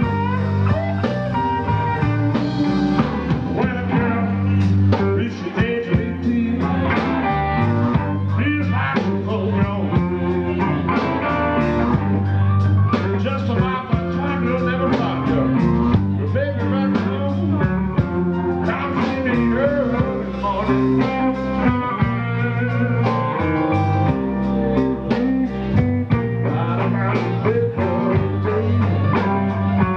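A blues-rock band playing live: electric guitar over bass and a steady drum beat, with a man singing at times.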